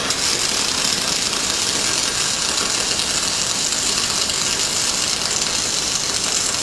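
MIG welding arc on aluminium from a Tweco spool gun on a Thermal Arc Fabricator 181i. The arc crackles and hisses steadily while a continuous bead is laid, throwing spatter.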